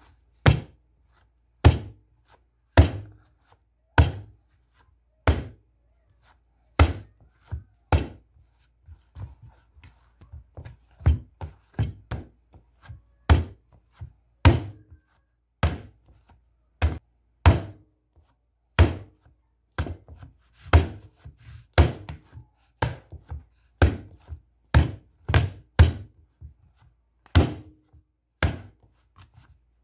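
Yeast bread dough slapped down by hand into a plastic mixing bowl, over and over: a run of sharp thuds, about one a second at first and quicker later. The dough is slammed as it is kneaded to bring it to a smooth, elastic stage.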